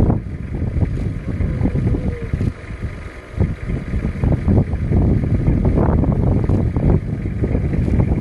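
Wind buffeting the microphone: a loud, uneven low rumble that swells and dips in gusts.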